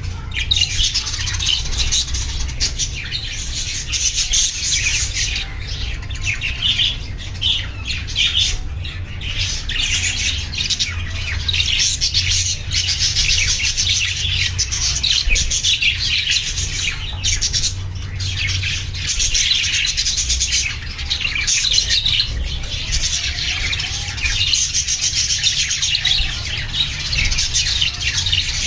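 Budgerigars chattering and chirping continuously, many high, rapid chirps overlapping without a break, over a steady low rumble.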